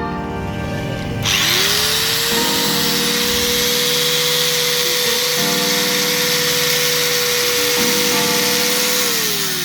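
Angle grinder switched on about a second in, its whine rising quickly to a steady pitch and running with a loud hiss, then winding down near the end.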